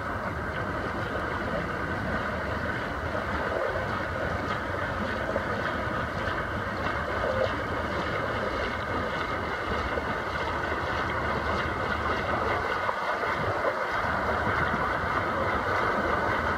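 Churning and splashing water from swimmers swimming freestyle down a pool, heard as a steady rush that grows a little louder near the end, with wind noise on the microphone.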